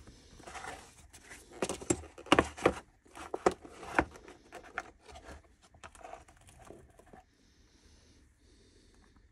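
Hard plastic O-ring assortment case being handled and opened on a metal workbench: a string of clicks and knocks, loudest about two and a half and four seconds in, dying away to faint rustling near the end.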